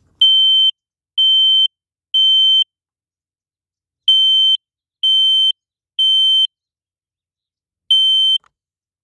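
Kidde smoke detector sounding its alarm on test: loud, high-pitched beeps about half a second long, three in a row at about one a second, a pause, three more, then one more near the end. This is the standard three-beep evacuation pattern, which shows the horn works.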